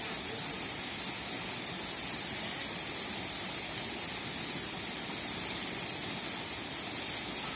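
Waterfall rushing steadily, with a constant high hiss over it.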